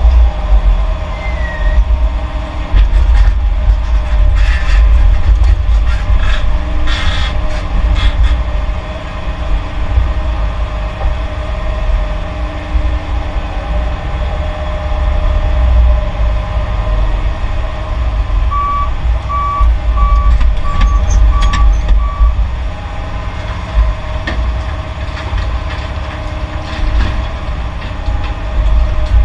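Heavy diesel engines of an excavator and dump trucks running with a deep, steady rumble. A run of clanks and knocks sounds a few seconds in. Later a reversing alarm beeps six times, about one and a half beeps a second.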